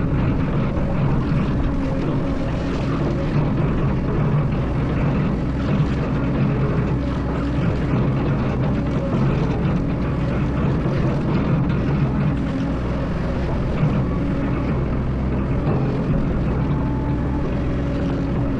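Excavator's diesel engine running steadily, a constant low drone with no sharp knocks or pauses.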